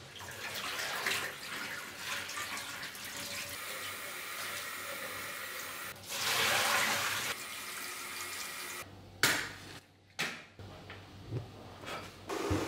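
Tap water running into a stainless steel sink while an enamel pot is rinsed under it, with a louder gush of water about six seconds in. A few sharp clicks and knocks follow near the end.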